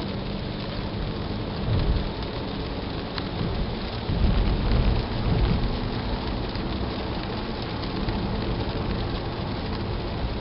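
Steady road and engine noise inside a moving car, picked up by a Star Eye M868 dashcam's microphone, with heavier low rumbles about two and four seconds in. No button rattle is heard: the camera's loose body buttons, which had rattled with the car's vibration, are taped down.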